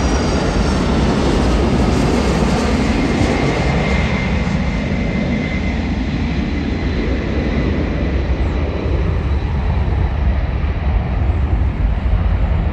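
Boeing 757-200 jet airliner's engines rumbling as it comes in to land, steady and loud, with a faint engine whine sliding slowly down in pitch over the first few seconds.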